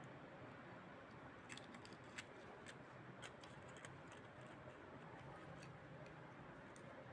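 Near silence with a faint low hum and scattered faint clicks and taps, most in the first half, from small parts and tools being handled while a fan regulator is taken apart.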